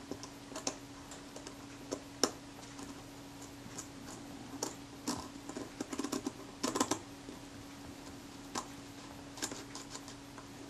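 Small metal clicks and light scraping as the aperture coupling of a Kodak Retina IIIc shutter is worked into place by hand, its tab being hooked into the fork. The ticks come irregularly, with two busier flurries about five and seven seconds in.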